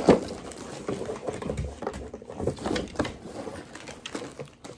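A dog shuffling about right against the microphone: irregular light taps and rustles of paws and fur, with one sharp knock right at the start.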